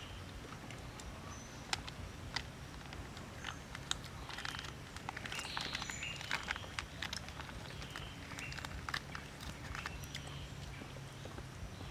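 Hands rolling a fresh spring roll in rice paper on a wooden board: light taps, clicks and crinkling handling noises, busiest a few seconds in, over a steady low rush of flowing river water.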